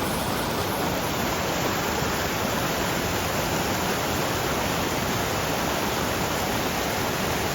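Steady rush of a large waterfall running strong, an even roar of falling water with no breaks.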